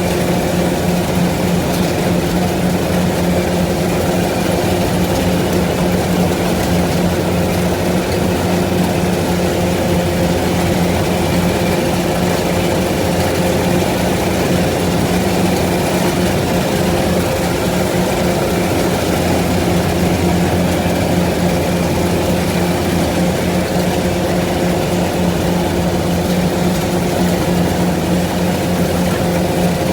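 Engine of a harvesting farm machine running steadily at a constant speed, with a continuous even hum.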